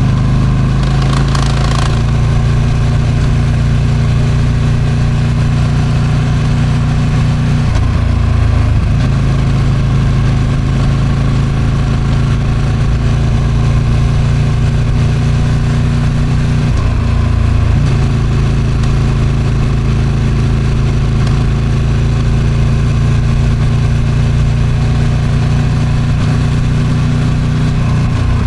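Ducati Streetfighter V2's 955 cc Superquadro twin on its stock exhaust, running at steady road speed with a steady note that drops briefly three times, about eight seconds in, around seventeen seconds and near the end. Wind noise hisses over it, and the chain is stretched, which the owner noticed from the recording.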